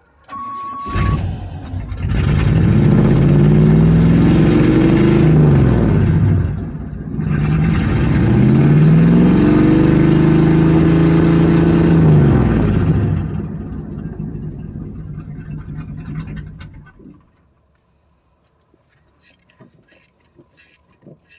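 1985 square-body Suburban's carbureted V8 catching about a second in, revved up and down twice with the gas pedal pumped, then sagging to a rough idle and dying about 17 seconds in: the gummy Quadrajet carburetor won't keep it running. A short steady tone sounds just before it catches.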